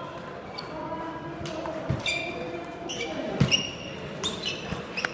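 Table tennis rally: a celluloid ball struck back and forth, a handful of sharp, irregularly spaced clicks of ball on bats and table, with short high squeaks in between.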